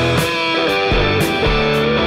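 Background music: a rock-style song led by electric guitar.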